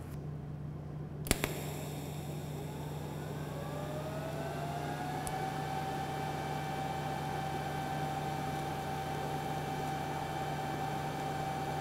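TIG welding arc on straight (non-pulsed) DC from an ESAB Rogue 200iP Pro inverter welder, run without filler metal. A click comes about a second in as the arc starts, then a steady hiss over a low hum. A whine rises over a couple of seconds and then holds one steady pitch.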